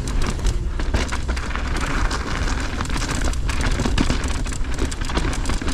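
Mountain bike rolling along a dirt trail: steady crunch of tyres on dirt and gravel, with quick rattling clicks from the bike and a low rumble of wind on the camera's microphone.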